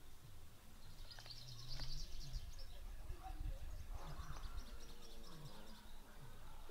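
Small birds chirping in quick high trills in several short spells, over a low outdoor rumble.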